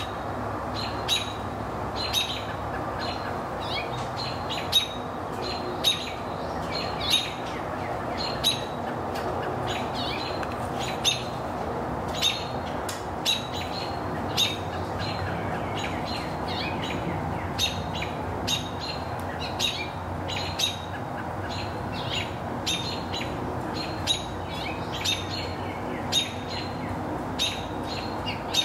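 A bird calling over and over with short, sharp chirps, roughly one a second, over a steady background rush.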